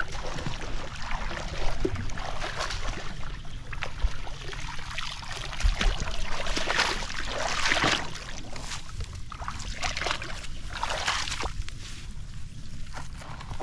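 Shallow water sloshing and splashing as a person wades through a flooded paddy, with water trickling from a woven bamboo scoop basket full of wet weeds. Near the end the basket is set down in the grass, which rustles.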